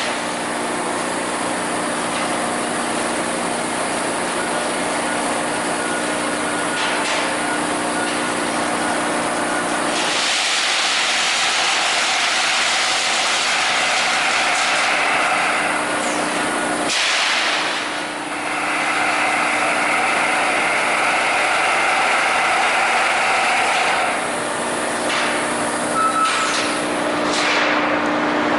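Amada Vipros King 368 II CNC turret punch press running under power: a steady machine hum with a hiss of air. The sound changes in character about every seven seconds, and a few short, sharp sounds come near the end.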